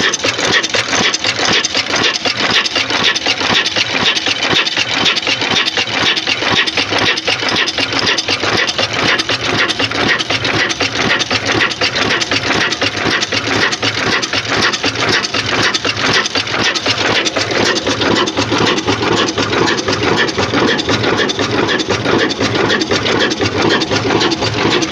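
Large Ruston horizontal diesel engine with a big flywheel running steadily, its fast, even beat and mechanical clatter unbroken throughout, with somewhat more body from about two-thirds of the way in.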